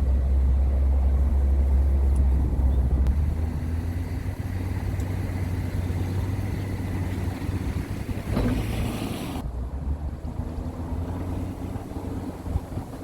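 Tow vehicle's engine running steadily with a low hum, heavier for the first three seconds and then lighter. About eight and a half seconds in comes a short burst of rushing noise that cuts off suddenly.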